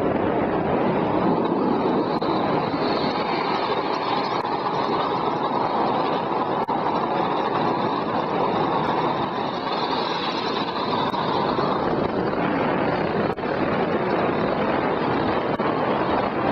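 Steady rushing noise of a gravity tricycle rolling fast downhill on a wet road: the wheels' road noise mixed with wind.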